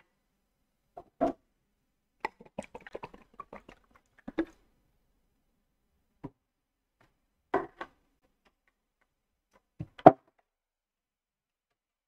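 Scattered small knocks and clicks close to the microphone, with a quick run of light clicks about two seconds in and the loudest knock near the end.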